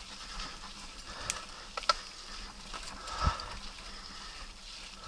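Mountain bike on knobby tyres rolling over a muddy, leaf-strewn dirt trail: steady rolling noise, with two sharp clicks between one and two seconds in and a low thump a little past three seconds.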